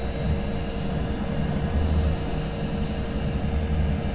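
Cheap digital hot air rework station blowing hot air on a phone motherboard at a low airflow setting to heat the CPU for removal: a steady air hiss with a low uneven rumble and a constant hum.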